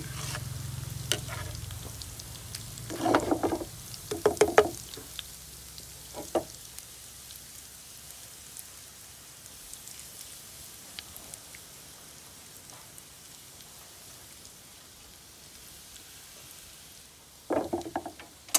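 Homemade chili-garlic sa tế frying in oil in a pan while being stirred, a steady sizzle that fades after about five seconds. Several louder knocks come about three to four and a half seconds in, and again near the end.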